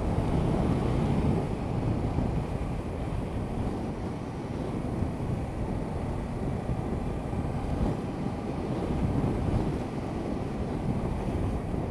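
Steady wind rush and low rumble on a motorcycle-mounted action camera's microphone as a Honda CB500X rides along at road speed, with the bike's running mixed into the noise.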